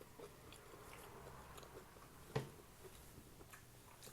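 Faint chewing with small mouth clicks from someone eating, and one sharper click about two and a half seconds in.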